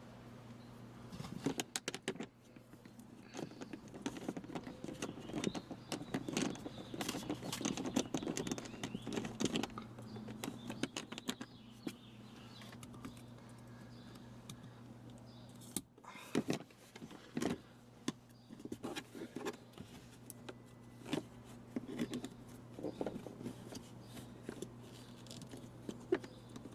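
Irregular clicks, taps and rattles of plastic and metal parts being handled while installing a car dash speaker, the densest handling in the first half and again near the end. A steady low hum runs underneath.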